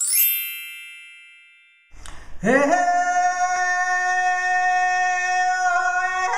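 A single high bell strike that rings out and fades over about two seconds. Then a woman's voice slides up into one long, steady sung note, the opening of a soul song.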